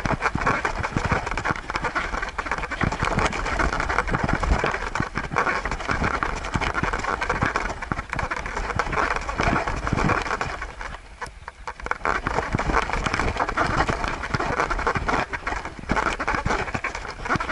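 Continuous scuffing and rustling from a camera riding on a Siberian husky's back as the dog walks, its fur rubbing against the camera, with many small knocks and a short lull about eleven seconds in.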